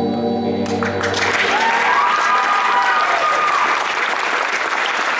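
Held organ chord of the show's recorded music cutting off about a second in, followed by steady audience applause with a long whoop over it.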